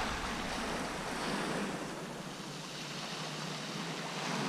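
Sea waves washing onto the beach in a steady hiss that swells a little near the end.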